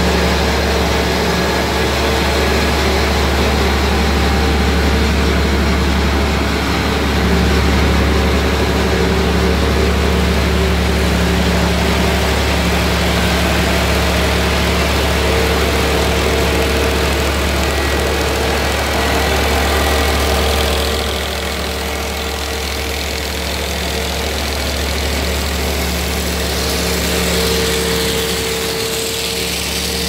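Engine and machinery of a Unimog-mounted MULAG tunnel washer running steadily with a low, even drone. The drone becomes a little quieter about two-thirds of the way through.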